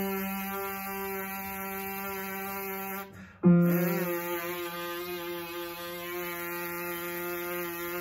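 A brass player's lip buzz without a mouthpiece, held steady on one note and then, after a short break about three seconds in, on a lower note, the low F. Each note is sounded on an upright piano, whose struck note fades under the buzz.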